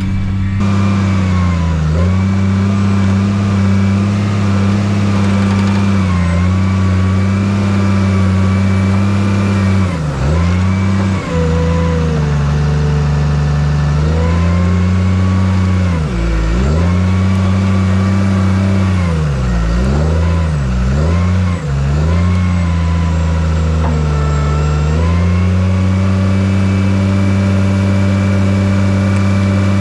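Bulldozer's diesel engine running at high revs, its pitch sagging and recovering several times as it lugs under load while pushing.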